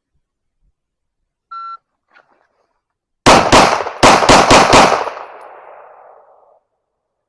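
A short electronic shot-timer beep, then six rapid pistol shots from a compensated Springfield Echelon, a bill drill: two shots, a brief pause, then four more in quick succession. Echo trails off after the last shot.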